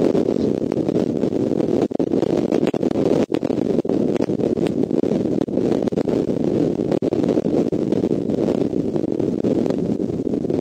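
Wind noise on the eagle nest camera's outdoor microphone: a steady low rushing, with a few faint clicks.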